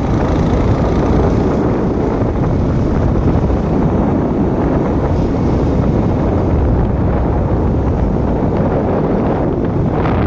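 Wind buffeting the microphone: a loud, steady, low rumble of wind noise.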